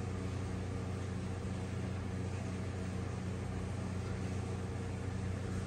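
Steady low mechanical hum with a few constant tones.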